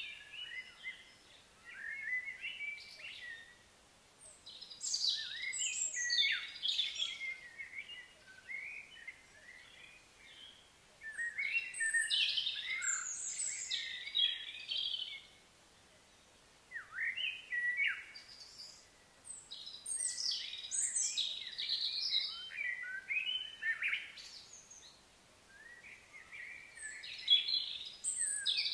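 Wild birds singing and calling: bouts of quick, high chirps and short sliding whistled notes every few seconds, with brief quieter pauses between.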